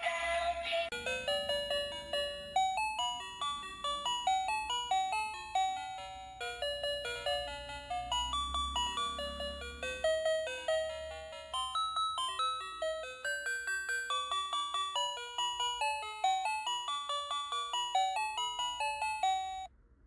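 Battery-operated dancing robot toy playing a tinkly electronic chime melody through its small speaker, one note after another at a steady beat. It cuts off abruptly near the end.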